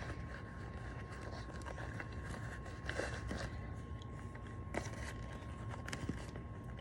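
Faint handling noises from a leather baseball glove being worked by hand: soft rustles and a few light taps, over a steady low hum.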